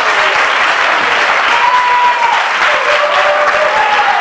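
Wrestling audience applauding, a dense steady clapping with a few voices calling out over it.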